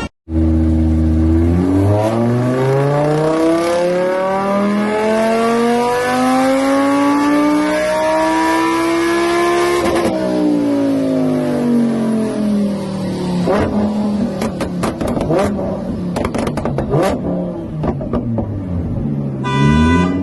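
Car engine accelerating, its pitch climbing steadily for about ten seconds and then falling away. In the second half a run of sharp clicks and knocks sounds over the lower engine note, and near the end the engine starts to climb again.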